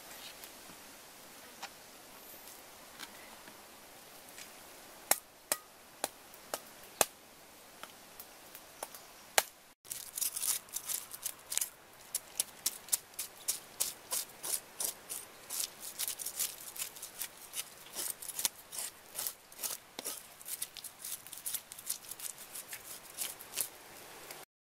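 A few sharp knocks, then from about ten seconds in a cleaver scraping the scales off a fish on a wooden chopping board: a fast, continuous run of crisp scratching clicks.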